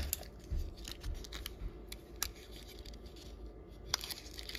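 Jewelry and its packaging being handled: scattered small clicks and light rustling, with a handful of sharper clicks.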